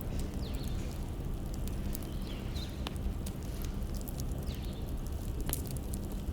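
Wood fire crackling, with a few sharp pops over a steady low rumble.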